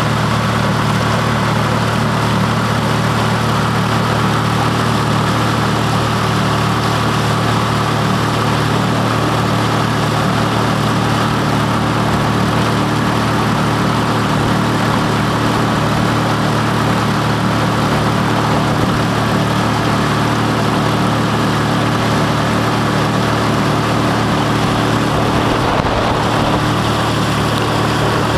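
Boat engine running steadily at an even speed, heard from aboard.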